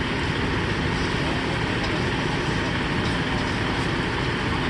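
Steady rushing noise of fire hoses spraying water into a burning house, over an even engine rumble typical of a fire engine running its pump.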